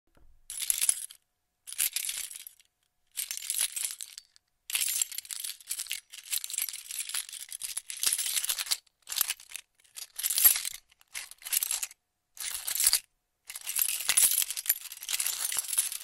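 A bunch of car keys on a key ring jingling, shaken in a series of short bursts with brief pauses between them, some bursts longer than others. Bright, close metallic clinking with hardly any low end.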